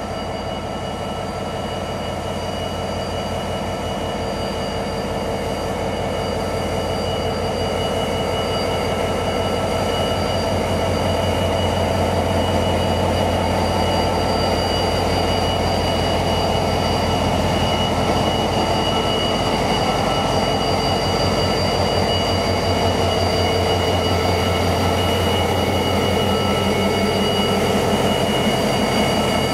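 Irish Rail 071 class diesel locomotive with an EMD two-stroke engine passing close by, running with a steady low throb and a steady high whine above it. The sound grows louder over the first ten seconds or so as the locomotive comes near, then stays loud.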